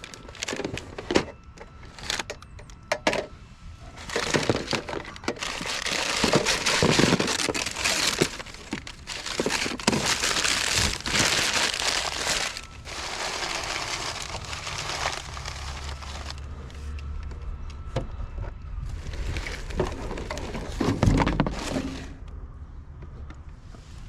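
Rummaging through a pile of scrap electronics and junk: plastic and debris rustling, crinkling and knocking in uneven bursts as pieces are pulled about.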